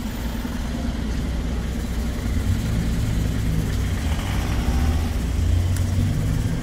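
A motor vehicle's engine running close by: a low, steady hum that grows louder and shifts in pitch about two seconds in.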